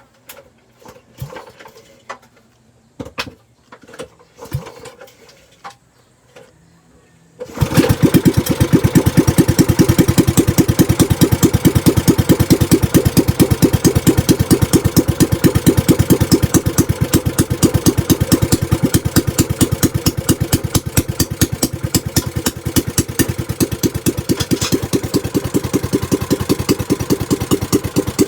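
A few knocks, then about seven seconds in a small single-cylinder gasoline boat engine catches and runs steadily with even firing pulses. It is running on a newly fitted carburetor, which cures a no-start caused by the old carburetor clogging during more than a year of storage.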